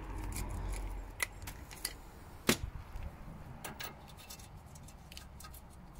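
Metal hand tools clinking: an 18 mm socket is picked from the tools on the floor and tried on a tie rod end nut, giving scattered light clicks and taps, with one sharper clink about two and a half seconds in.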